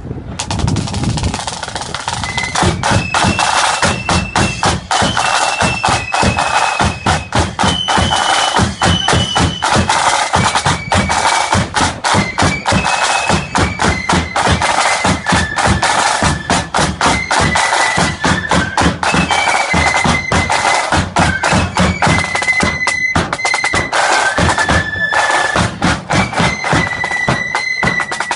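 Marching flute band playing a tune: a high, shrill flute melody over rattling side drums and a bass drum.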